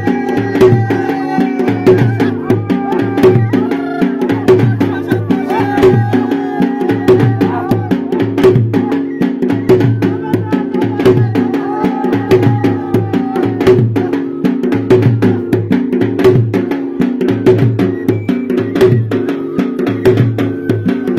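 Churahi nati folk dance music: a steady drum beat with a wavering melody line over it.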